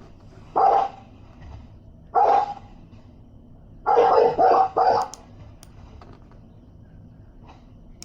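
A dog barking: a single bark about half a second in and another about two seconds in, then a quick run of three or four barks around the four-to-five-second mark.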